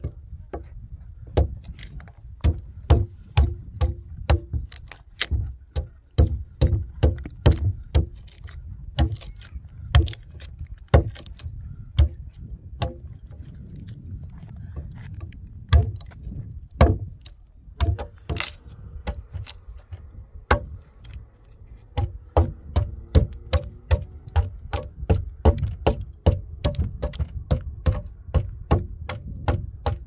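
Small hatchet chopping into a peeled wooden pole: sharp, irregular strikes of wood on steel, a couple a second, with short pauses now and then as chips split off.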